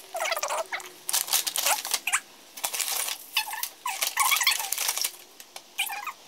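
Crinkling plastic wrapping and light clicks and taps as a small plastic cup and a plastic-wrapped utensil packet are handled and set down on a wooden table, with a few brief squeaks.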